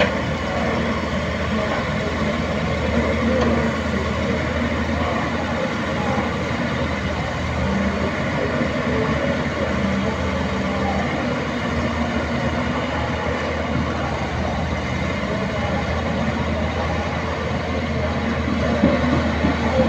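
Caterpillar 320D long-reach excavator's diesel engine running steadily under load as the machine swings and digs in mud.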